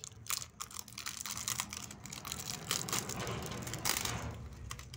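Clear plastic wrap crinkling and crackling as it is peeled off a small cardboard box: a quick run of small clicks that grows busier about three seconds in.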